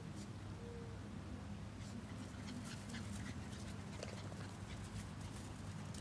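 Rat terrier panting, a run of short quick breaths starting about two seconds in, over a steady low hum.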